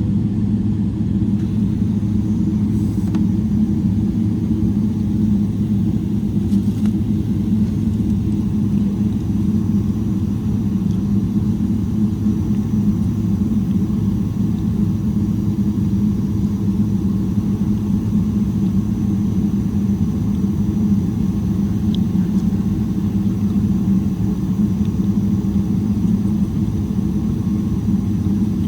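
Steady cabin rumble of a Boeing 777-300ER, its GE90-115B engines running at low, unchanging power, heard inside the cabin from a rear window seat, with a faint high whine above the rumble.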